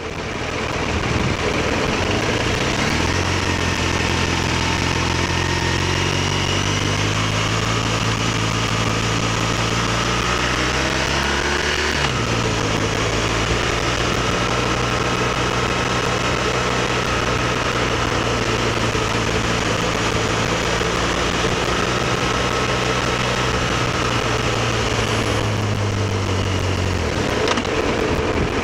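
BMW R1200RT's boxer-twin engine running under way. Its pitch climbs as it accelerates, drops sharply at an upshift about twelve seconds in, holds steady, and then fades near the end as the bike slows. Steady wind and road noise carry over it at the camera mounted below the headlight.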